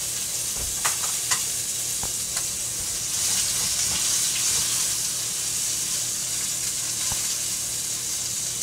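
A large steak searing in a hot stainless-steel skillet, sizzling steadily. The sizzle swells a little midway, and there are a couple of light clicks about a second in.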